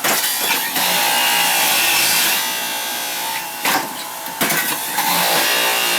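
Electric juicer running as a green apple is fed through it, a loud harsh grinding noise that briefly breaks off twice about four seconds in.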